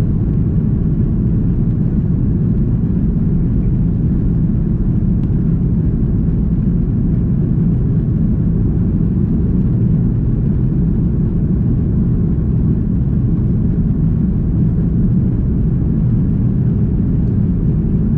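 Steady low rumble of engine and airflow noise inside the cabin of an Airbus A330-300 climbing out after takeoff.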